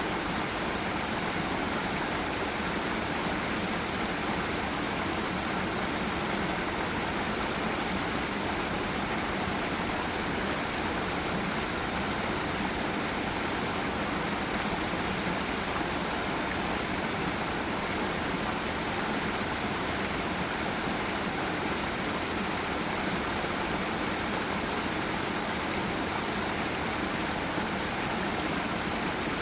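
Forest river and small waterfall: water rushing over rocks in a steady, even roar.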